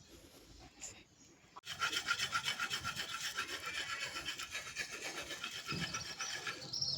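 Hand saw cutting through a wooden wall board with quick, even back-and-forth strokes, starting about one and a half seconds in.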